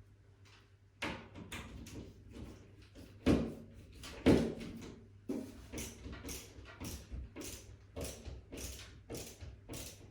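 A screw being driven into the ceiling by hand with a screwdriver: short scraping strokes about two a second, with two louder knocks a few seconds in.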